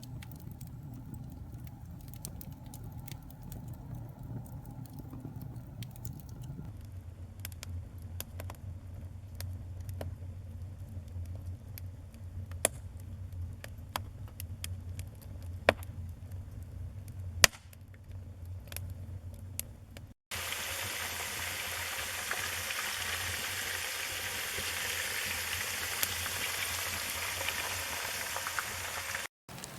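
Wood campfire crackling, with irregular sharp pops and snaps over a low rumble. After an abrupt cut about two-thirds of the way in, a steady, louder hiss with fine crackle runs until another cut just before the end.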